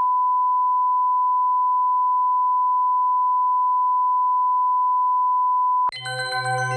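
Steady 1 kHz line-up test tone played with colour bars, a continuous pure beep at one pitch. It cuts off abruptly about six seconds in, and music with bell-like chiming notes over a low drone starts.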